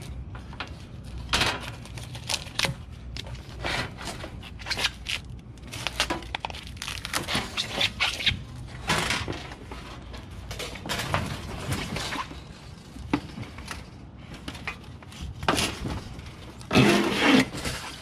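Metal parts being handled and knocked about: irregular clanks, taps and scrapes, with a louder clatter near the end.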